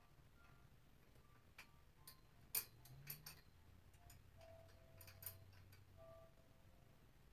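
Quiet, irregular light metal clicks and clinks from the chrome steel tubing of a rolling clothes rack being worked into its top corner fitting, the sharpest about two and a half seconds in, with a couple of faint short ringing tones.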